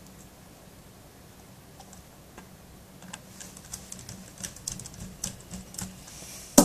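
Small irregular ticks and clicks of a screwdriver driving the keyboard retaining screw back into a Dell Studio laptop, with hands shifting on the keys. The clicks grow busier after about three seconds and end in one sharper click, over a faint low hum.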